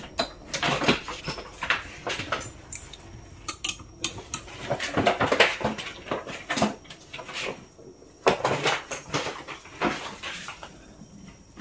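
Irregular clinks, knocks and rustling of belongings and a bag being handled and set down.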